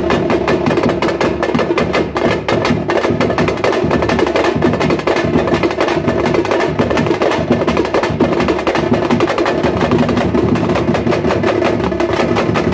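Two-headed drums beaten with sticks, playing a fast, unbroken rhythm of sharp strikes over a steady ringing drum tone.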